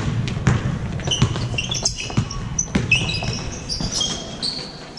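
A basketball bouncing on a hardwood gym floor during play, with irregular thuds about once a second, and sneakers squeaking in short high chirps as players cut and stop.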